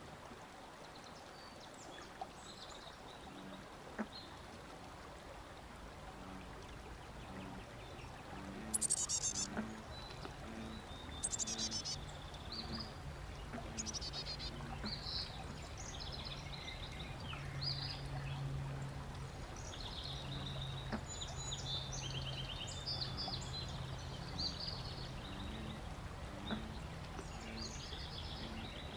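Nature soundscape recording played back: birds calling and chirping over a steady background noise, with bird calls starting about nine seconds in and growing busier, and low repeated tones underneath.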